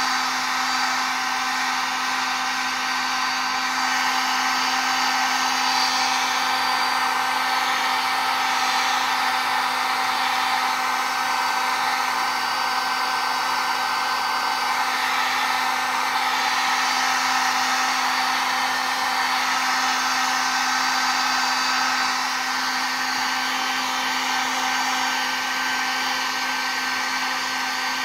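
Drill Master heat gun running steadily on its high setting: a constant rush of blown air over a steady motor hum.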